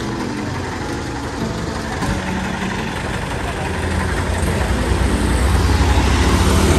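A truck engine running with a low, steady hum that grows louder about four seconds in.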